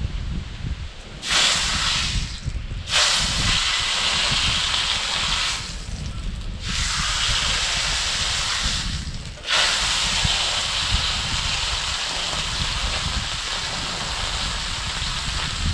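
Beef steaks sizzling in hot oil in a large tacho pan: the sizzle starts loud about a second in, dips briefly three times and picks up again as the steaks are laid in and moved, over a low rumble.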